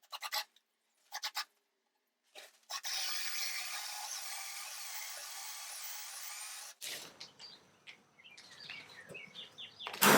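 Drill boring a hinge cup hole for a 170 degree Blum hinge into a cabinet door through a Kreg jig. A few clicks come first, then the drill runs steadily for about four seconds and stops sharply.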